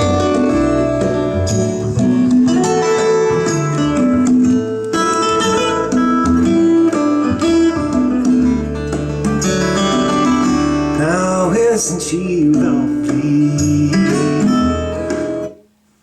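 Recorded acoustic guitar music playing through a pair of vintage JBL C38 loudspeakers, two-way cabinets with D130 woofers and 075 ring radiator tweeters. The music stops near the end, where one track gives way to the next.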